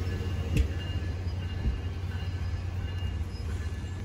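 NJ Transit double-deck commuter coaches rolling along the platform: a steady low rumble with a few knocks from the wheels, the clearest about half a second in.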